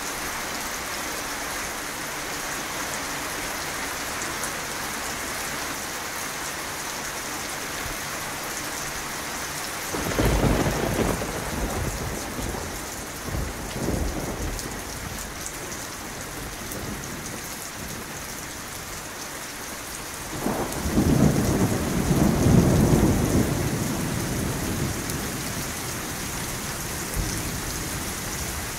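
Steady rain with rolling thunder. A rumble comes about a third of the way in, with a smaller one just after. A louder, longer roll comes about two-thirds of the way through and fades slowly.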